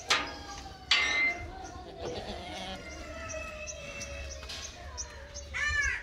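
Goats bleating in a pen, with a sharp knock near the start and a brief louder noise about a second in.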